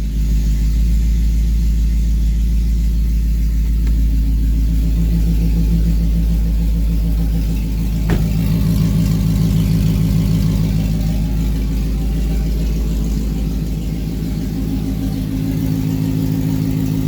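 Audi RS4 engine with a rear-mounted turbo idling loud and steady through an essentially open header, its new downpipe not yet connected to the rest of the exhaust. A single sharp click is heard about halfway through.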